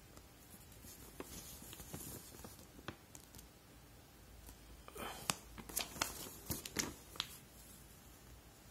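A paper instruction leaflet being handled and turned over, rustling and crinkling, with a burst of sharp crackles about five to seven seconds in.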